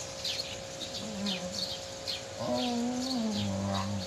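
A small bird chirping over and over, short falling chirps about twice a second. A person hums a low note briefly about a second in, then holds a longer two-note hum through the second half.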